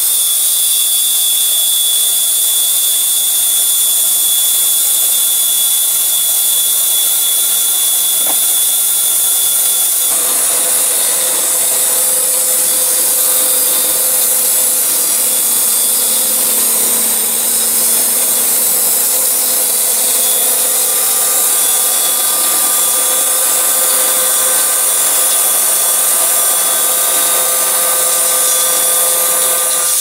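Band sawmill's blade cutting through a log, driven by its electric motor: a steady hiss of the blade in the wood with a thin steady whine over it. The sound grows fuller about ten seconds in.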